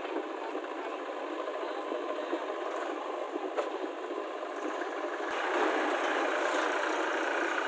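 Massey Ferguson 241 DI tractor's diesel engine running as it pulls a trailer past, with other tractor engines running behind it. The engine grows louder about five and a half seconds in as the tractor comes close.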